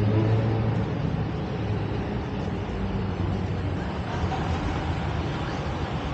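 Road traffic on a city street. A vehicle engine's low hum is loudest at the start and eases off after a second or two, over steady traffic noise.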